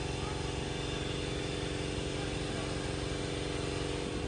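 A machine or motor running steadily: a constant drone of fixed pitch that does not rise or fall, and stops abruptly at the end.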